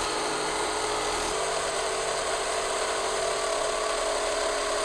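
1973 Mattel Vertibird toy helicopter in flight: its motor and gearing whir steadily as the tethered rotor spins, with the pitch shifting a little over a second in as the power is changed.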